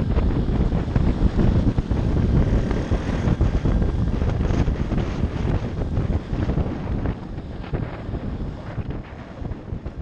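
Pit bike ridden at road speed: heavy wind buffeting on the rider's camera microphone with the small engine running underneath. It all fades away over the last few seconds.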